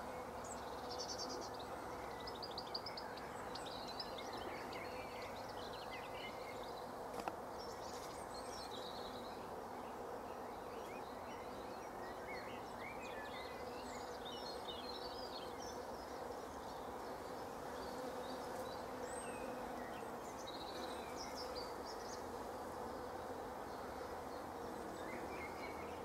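Many honeybees buzzing as they work a flowering hedge, making a steady, even hum. Small birds chirp in the background throughout.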